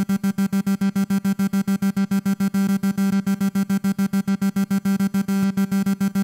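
Casio CT-X keyboard playing its X-Synth Lead 4 synth tone through the Filter arpeggiator: one sustained note chopped into fast, even, tempo-synced pulses, about seven a second, like a synth LFO.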